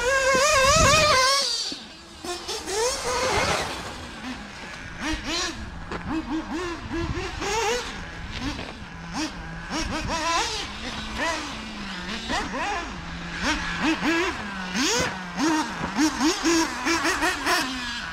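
Ultimate M5 3.5 cc nitro engine of a 1/8 off-road buggy, revving up and down in quick rises and falls of pitch as the buggy laps the track. It is loudest for about the first second and a half as it passes close, then fainter with repeated bursts of throttle.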